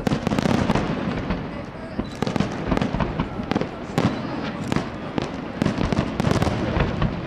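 Fireworks display: a dense, unbroken barrage of aerial shell bursts and crackling, several loud bangs a second.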